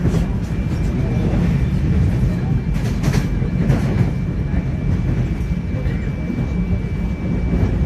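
Train crossing a bridge: a heavy continuous rumble with a few sharp wheel clicks from the rail joints and a faint steady high whine.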